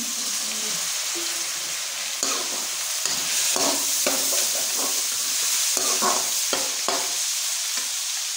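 Batter-coated chicken pieces sizzling steadily as they fry in hot oil in a pan. Short knocks and scrapes come and go over the middle few seconds, as pieces are stirred.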